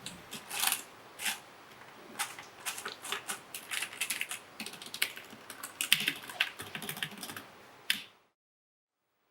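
Typing on a freshly cleaned mechanical keyboard: rapid, irregular keystrokes that stop abruptly about eight seconds in.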